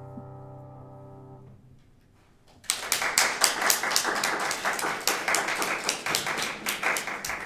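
The last piano chord of the accompaniment rings and dies away. After a short pause, audience applause breaks out about two and a half seconds in and carries on to the end.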